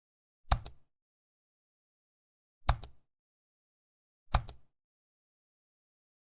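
Three sharp knocks about two seconds apart, each a quick double hit with a deep low thud, separated by total silence.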